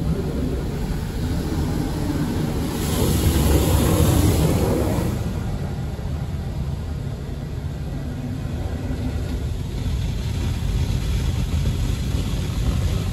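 Belanger Vector Rapid Wash in-bay automatic car wash spraying the car, heard from inside the cabin: a steady low rumble, with a louder hissing spray pass about three to five seconds in.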